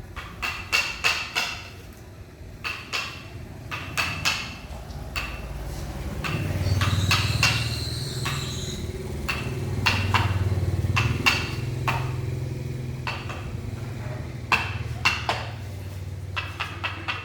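Sharp, repeated knocks of a mallet striking a wood-carving chisel, in irregular runs. From about six seconds in, an engine hum runs underneath the knocks for several seconds.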